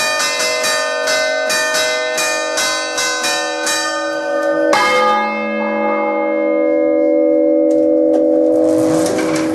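Three swinging bronze church bells ringing close up in the bell chamber: quick rhythmic strokes for the first half, then a heavy stroke about halfway through as the big bell swings up mouth-up, after which the bells' tones ring on without further strokes. A hiss rises near the end.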